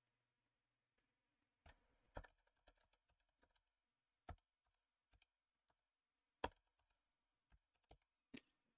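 Faint computer keyboard keystrokes: about eight separate key clicks at uneven intervals, with near silence between them.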